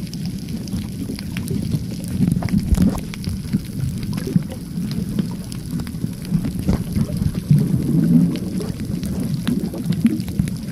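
Muffled underwater sound picked up by a camera under water over a coral reef: a steady low rumble of moving water with many scattered faint clicks and crackles.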